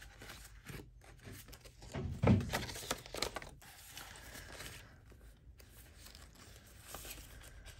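Paper rustling and crinkling as cash and paper budget envelopes are handled, with a louder thump about two seconds in.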